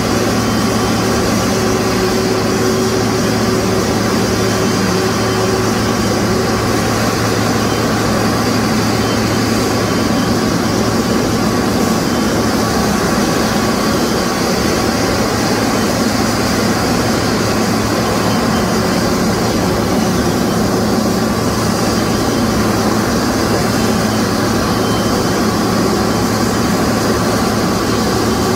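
Boeing 777-300's twin jet engines running at low taxi power as the airliner rolls slowly in to its stand: a steady, loud engine noise with a thin whine over it.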